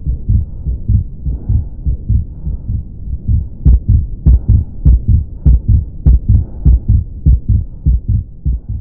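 Auscultation recording of a heart with an atrial septal defect: regular heartbeats at about a hundred a minute, with a soft murmur between the beats. About three and a half seconds in, the beats grow louder and each carries a sharp click. This is the pattern described for this defect: a loud first sound, a loud split second sound over the pulmonary artery, and a systolic murmur at the left sternal border.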